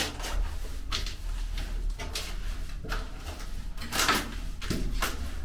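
Irregular knocks and scuffs, one every half second or so, the loudest about four seconds in, over a steady low hum.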